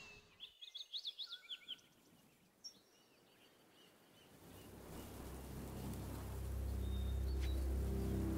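Songbirds chirping in a quick run of high, sweeping notes over the first second or two. From about halfway a low, steady musical drone swells in and grows louder.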